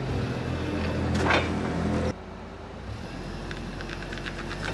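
Forklift engine running steadily as the forklift rolls slowly over a flashlight lying on concrete, with a short crunch about a second in. About two seconds in the engine sound drops suddenly to a quieter hum.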